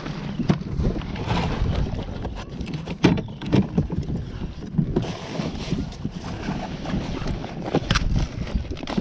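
Knocks, clicks and rattles of gear being handled on a plastic Hobie kayak, scattered irregularly, with a low wind rumble on the microphone.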